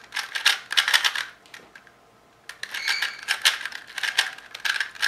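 Plastic 3x3 speedcube being turned fast, layers clacking in rapid runs, with a short pause about two seconds in before the turning resumes. The cube is a little locky, catching now and then.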